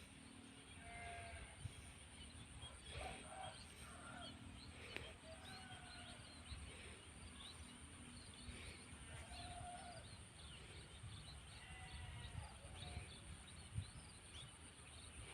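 Faint rice-paddy ambience: a steady high-pitched insect drone under many short bird chirps, with scattered short animal calls every few seconds.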